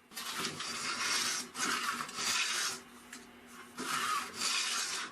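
Four rubbing strokes of wood on wood, with a short pause in the middle, as the mini table saw sled's freshly waxed runners are worked back and forth.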